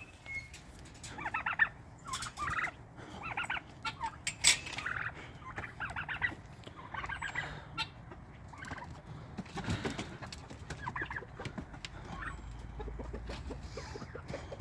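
Domestic turkeys gobbling in short, rapid bursts every second or so, with chickens clucking in quick low runs near the end.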